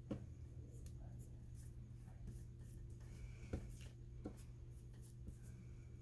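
Faint rustling and a few soft taps of paper and craft materials being handled, over a low steady hum.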